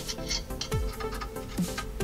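Background music with a steady beat: a deep, falling bass kick about every 0.8 seconds, with crisp hi-hat ticks over it.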